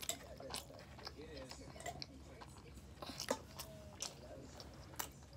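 A person chewing breaded spicy chicken nuggets close to the microphone: wet mouth sounds with scattered sharp crunches and clicks, the loudest a little past three seconds in.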